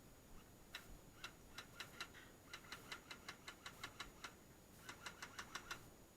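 Faint airsoft gunfire: a series of sharp clicking shots, about five or six a second, in three short runs.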